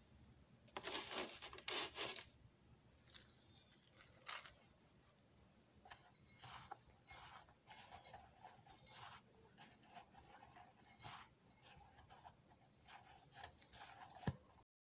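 Pieces of bread dough being pressed and rolled in a bowl of dry breadcrumbs: soft, irregular rustling and scraping of crumbs, with a couple of louder scrapes about a second in.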